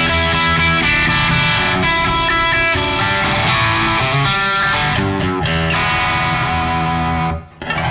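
Electric guitar with single-coil pickups played through a KOR EdenDrive overdrive pedal, giving a distorted rock tone: chords and riffs played continuously, with a brief break near the end.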